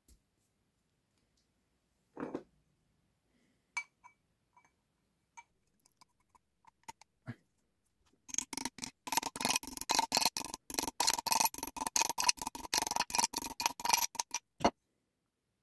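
Metal parts clicking and rattling in the hands as brass rods and gear-shaped collars are fitted onto a metal cylinder. A few scattered clicks come first. About eight seconds in, a fast, continuous run of clicks and rattles starts, and it ends with one sharp click.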